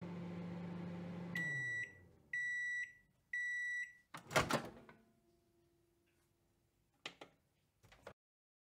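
Microwave oven running with a steady hum that winds down as the timer reaches zero, then three long high beeps signalling that the cooking is done. A loud clunk of the door opening follows, and a couple of soft clicks come near the end.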